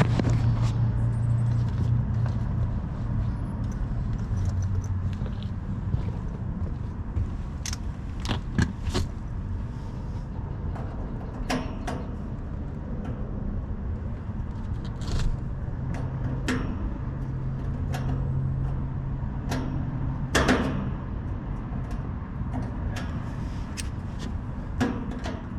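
Sharp metallic clicks and taps of a hand tool working the screws of an air-conditioner condenser's sheet-metal cabinet, scattered over a steady low hum.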